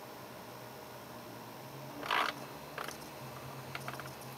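Faint low hum from the bench-driven BMW M30 idle control valve and its motor controller, pulsing the valve as the duty cycle is set back to 50%. A brief rustle comes about two seconds in, and a few light clicks follow near the end.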